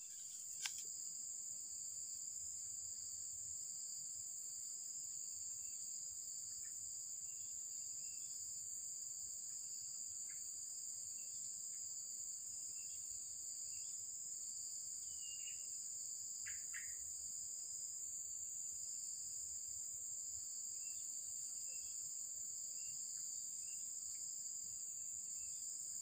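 Steady, high-pitched chorus of insects such as crickets, unbroken throughout, with a few faint short chirps scattered through it and a single short click just after the start.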